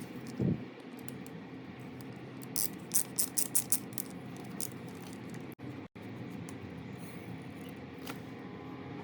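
Handling of a small metal hand tool: a soft knock, then a quick run of about six light clicks, over a steady hum.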